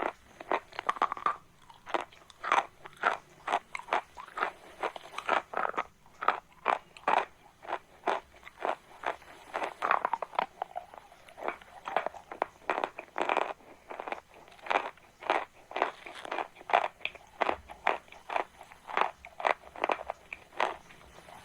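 Chalk being bitten and chewed close to the microphone: an irregular run of crisp crunches, two or three each second.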